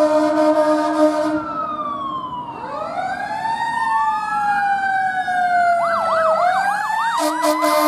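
Fire engine responding with its air horn blaring, then its electronic siren wailing up and down. Near the end the siren switches to a fast yelp and the air horn sounds again.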